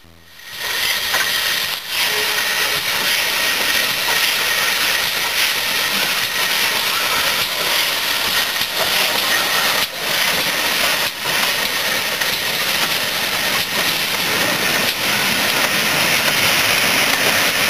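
A GWR 5101 Class large prairie 2-6-2 tank steam locomotive drawing its carriages slowly into the platform and past, with a steady loud hiss of steam and the train rolling on the rails.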